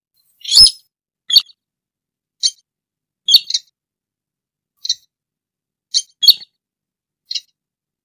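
Slaty-breasted rail (burung sintar) giving short, sharp high call notes at irregular intervals, about nine in all, some in quick pairs, the first the loudest.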